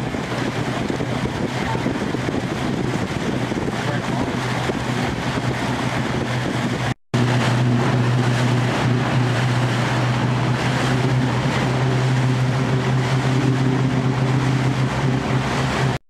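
Motorboat engine running at a steady pitch while under way, over a wash of water and wind noise. The sound drops out for an instant about seven seconds in and comes back with the engine hum louder.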